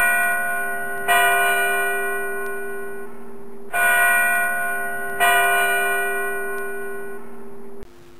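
Church bell struck in pairs, each stroke ringing on and slowly fading: three strokes about 1, 3.5 and 5 seconds in, over the ringing of one just before. The ringing cuts off suddenly near the end.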